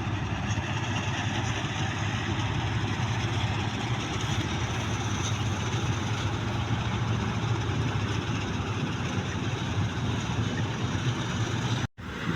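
Engine of a New Holland 8070 combine harvester running steadily with an even low hum, cutting out for an instant near the end.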